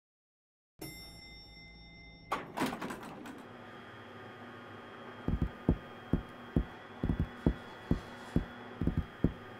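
Inside a lift car: a steady electrical hum, a clattering thunk of the lift doors closing a couple of seconds in, then a run of low, uneven thumps starting about five seconds in.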